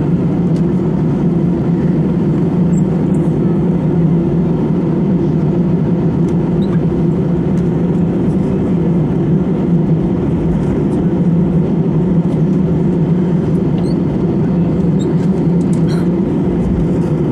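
Jet engines of a twin-engine airliner running at taxi power, heard from inside the cabin as a loud, steady hum and rumble. A few faint clicks sound near the end.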